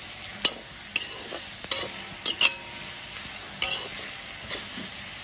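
Pork frying and sizzling in its own fat in a black iron kadai while a metal spatula stirs it, scraping and knocking against the pan several times, about once a second.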